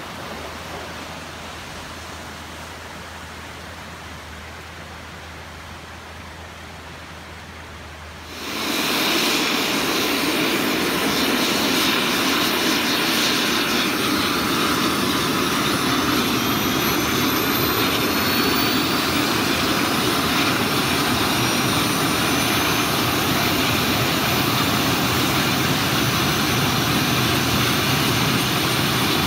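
A flooded river rushing steadily, then, about eight seconds in, the much louder, steady roar of a Mi-8 helicopter's turbine engines starting up, with a whine slowly rising in pitch as they spool up before the rotor turns.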